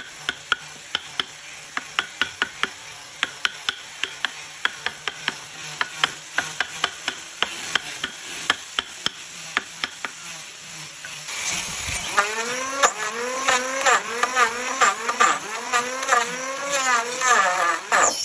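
A mallet knocking a carving chisel into wood, about two to three sharp strikes a second. About eleven seconds in, a louder pitched whine starts that wavers up and down over and over, like a small power tool's motor under changing load, with a few knocks still going.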